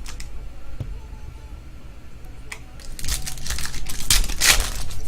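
Foil trading-card pack wrapper crinkling and tearing open, a dense run of rustling in the second half.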